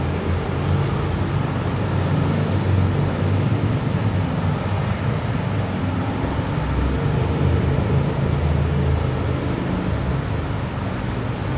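Niagara River whitewater rapids rushing: a steady, even low rumble of moving water.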